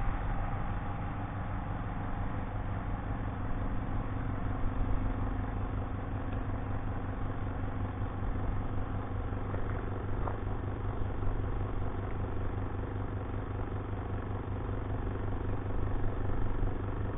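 Spin-dryer drum of a small twin-tub washing machine spinning a load of wet towels at high speed, a steady motor hum as the water is spun out of them.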